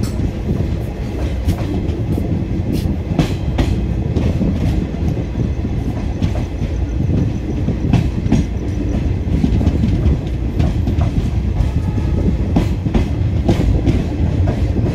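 A passenger train running, heard from an open door of the coach: a steady heavy rumble of wheels on rails with irregular sharp clacks as the wheels cross rail joints.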